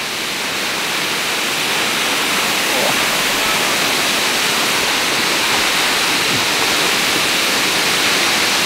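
Waterfall plunging into a rock pool: a steady, dense rush of falling water that swells slightly over the first few seconds.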